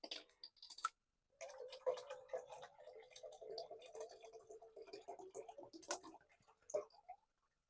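Water being poured into a pot with a light glugging, between a few small clicks and knocks of gear being handled.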